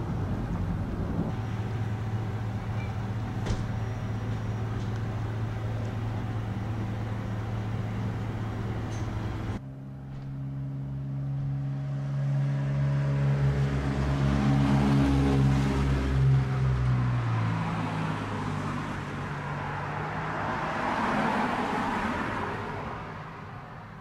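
Road vehicles: a steady engine hum, then after a sudden cut about ten seconds in, engines that shift in pitch and swells of passing traffic, fading near the end.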